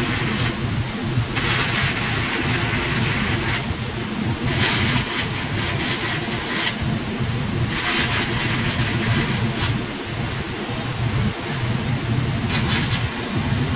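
Robotic arc welder laying welds: a hissing, crackling arc comes on and cuts off several times in runs of one to three seconds. A steady low machine hum runs underneath.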